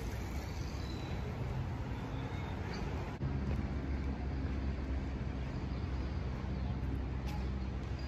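Steady road traffic noise from passing cars, a constant low hum. It jumps slightly louder at a cut in the recording about three seconds in.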